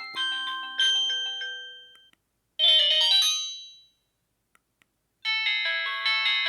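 Samsung M1200 mobile phone ringtones playing. A melody of bell-like notes dies away about two seconds in, a short jingle of about a second follows, then two faint clicks, and another, busier ringtone melody starts near the end.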